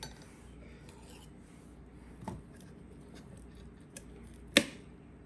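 Metal spoon scraping solid coconut oil out of a tub: faint scrapes and rubbing with a few small clicks, and one sharp clink of the spoon near the end.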